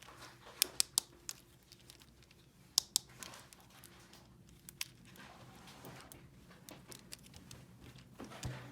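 Small plastic toy pieces being handled, with a few sharp clicks and taps: a quick cluster in the first second, two more about three seconds in, and one near five seconds, over faint rustling.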